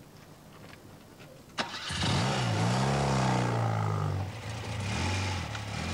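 Motorcycle engine started: a sharp click about a second and a half in, then the engine catches and is revved up and down before settling to a steady run.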